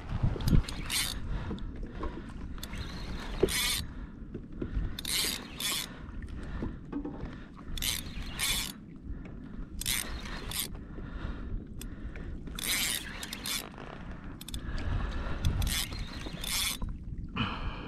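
A heavy saltwater spinning reel working against a hooked fish: reel and drag noise comes in clusters of two or three short bursts every couple of seconds.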